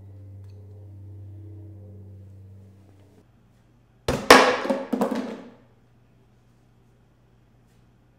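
A tossed object lands with a loud hit about four seconds in and clatters, bouncing several times for about a second and a half: a throw at a trash can that misses. Before it, a faint low hum stops about three seconds in.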